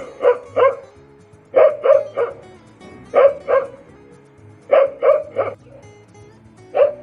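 Dog barking in quick runs of two or three barks, about every second and a half.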